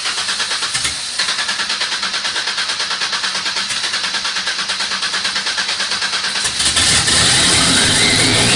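Turbocharged V6 Mustang engine being cranked by the starter, pulsing about six times a second, on its first start. About six and a half seconds in it catches and runs louder, with a rising whine near the end.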